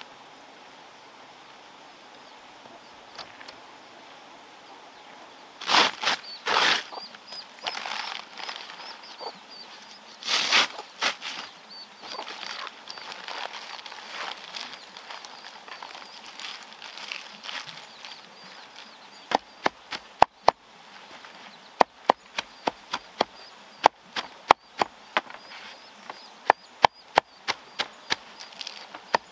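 Leaves rustling as they are handled and rolled into a bundle, then, from about two-thirds of the way in, a machete chopping the bundle of herb leaves on a wooden block: many sharp knocks at an uneven pace.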